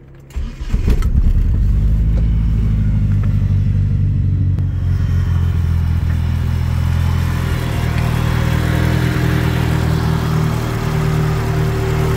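Turbocharged 4G63 four-cylinder engine of a Mitsubishi DSM cranking briefly and catching within the first second, then idling steadily.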